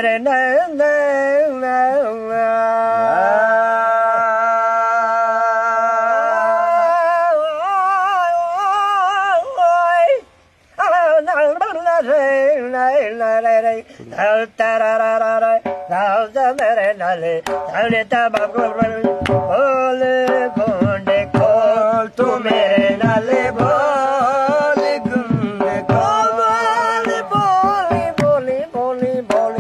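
Singing in long, held, wavering notes, broken by a brief pause about a third of the way in. From about halfway, quick drum beats join the singing.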